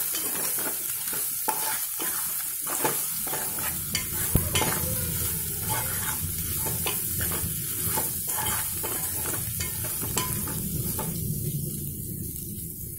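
Tendli (ivy gourd) and onions sizzling in oil in an aluminium pan while a metal spoon stirs them, with repeated scrapes and knocks of the spoon against the pan over the steady frying hiss.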